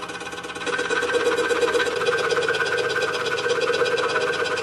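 DeWalt scroll saw running, its blade stroking rapidly up and down through a thin wooden piece. It gets louder about a second in, as the saw's speed is turned up a little.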